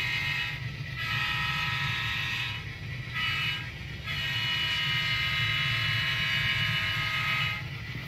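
Sound-equipped model GP9 diesel locomotive blowing its horn in the grade-crossing pattern: the end of one long blast, then long, short and a final long blast, over a steady low running sound of the engine and train.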